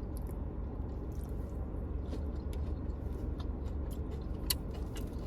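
Close-up chewing of a fried chicken wing: scattered small wet mouth clicks and smacks, with one sharper click near the end, over a steady low rumble.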